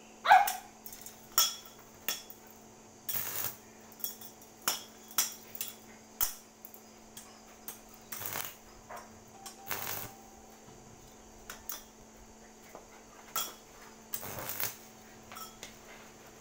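Irregular metallic clinks, clicks and short scrapes as a homemade welding ground clamp is handled and pressed onto a steel bar; a sharp clink just after the start is the loudest.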